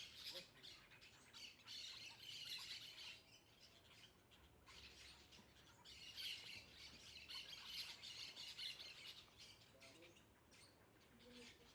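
Faint chorus of birds squawking and chirping, coming in two busier stretches: through the first three seconds and again from about four and a half to nine seconds in.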